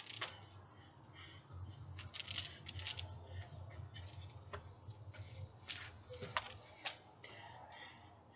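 LED hula hoops handled and spun: irregular light swishes, taps and scuffs, bunched in quick runs about two seconds in and again about six seconds in, over a faint steady low hum.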